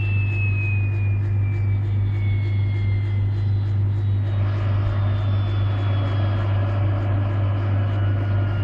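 SA 342 Gazelle helicopter's turbine whine slowly falling in pitch as the engine winds down, over a steady low hum. A broader rush of noise rises about four seconds in.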